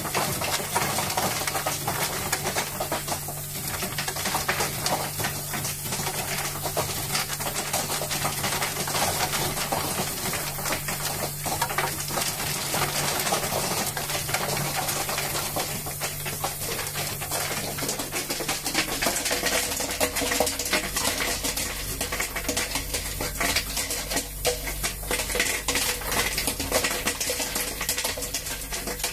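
Commercial cube ice machine harvesting: ice cubes break loose from the vertical evaporator plate and clatter down into the storage bin as a continuous jumble of clinks, over a steady machine hum. A deeper hum joins about two-thirds of the way through. The machine is making and dropping ice normally again after its repair.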